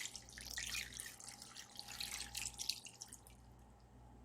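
Water pouring and splashing into a slow cooker pot of soup ingredients, trickling to drips and stopping about three seconds in.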